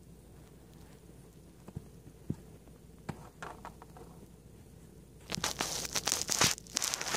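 A kitten playing with a toy right at the microphone: a few soft taps at first, then about two seconds of loud, scratchy rustling near the end as it grabs and bites the toy.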